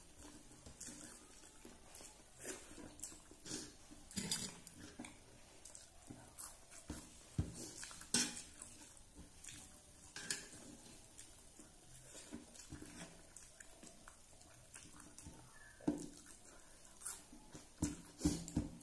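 Fingers mixing rice and curry on a metal plate, with soft, irregular scrapes and clicks against the metal.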